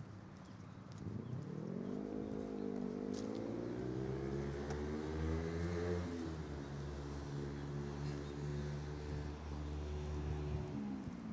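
A passing motor vehicle's engine. It comes in about a second in and rises in pitch for several seconds, drops in pitch about six seconds in, runs steady, then falls away near the end.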